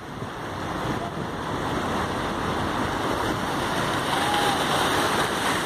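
Sea waves washing over shoreline rocks: a steady rushing that swells gradually.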